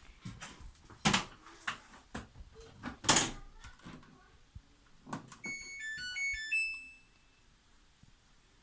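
A few knocks and thumps, the loudest about one and three seconds in, then a short electronic jingle of quick stepped beeps from the Samsung DV45H700EW dryer's control panel, its power-on chime.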